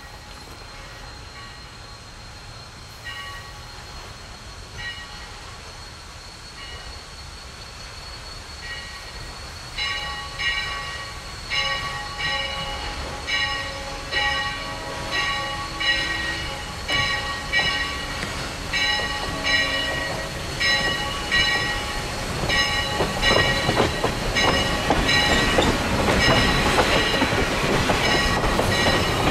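Locomotive bell ringing with evenly spaced strokes, slow at first, then about two strokes a second from about a third of the way in. Toward the end the wheels of freight cars rolling close by rumble and clatter louder and louder.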